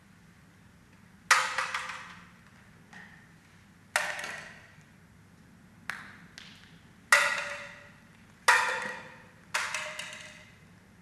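Badminton racket striking shuttlecocks: an irregular string of sharp smacks, five loud and a few softer, each ringing out briefly in the hall.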